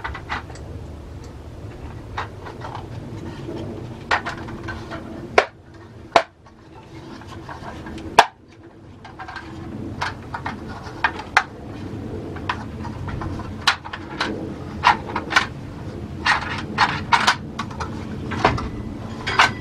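Plastic dryer vent hood being handled and fitted onto a wooden board over a small fan: irregular clicks and knocks of plastic against plastic and wood, with two sharper knocks about five and eight seconds in.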